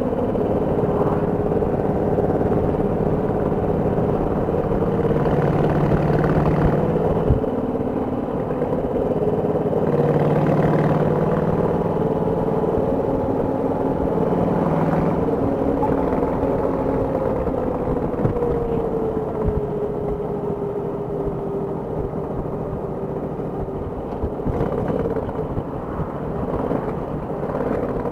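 Cruiser motorcycle engine running steadily while riding at road speed, over a constant rush of wind and road noise. About two-thirds of the way through the engine note drops slightly as the bike eases off.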